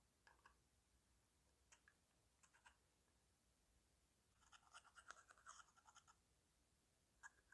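Slime being handled and squished, giving faint sticky clicks and pops, with a brief run of rapid crackling a little past the middle.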